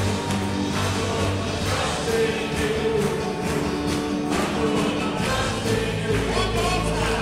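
Lively praise and worship music with a group of voices singing over held bass notes and a steady beat.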